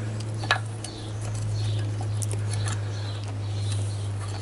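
A steady low hum throughout, with a sharp click about half a second in and scattered light clicks of metal parts being handled on a motorcycle engine. Faint bird chirps are audible behind them.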